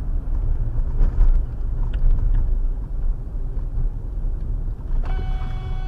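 Steady low road rumble inside the cabin of a moving car. About five seconds in, a car horn starts sounding, one steady held note.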